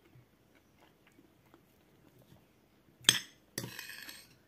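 Metal spoon on a plate: faint small clicks, then one sharp clink about three seconds in, followed by a short scrape of the spoon across the plate.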